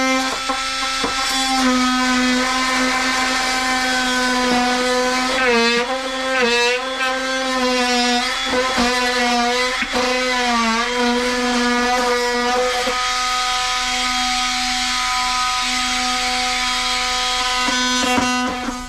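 Electric sander running, a steady whine whose pitch dips briefly a few times in the middle, then switched off at the end.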